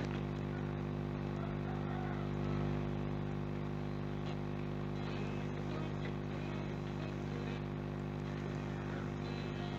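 Steady low background hum made of several constant low tones, unchanging throughout.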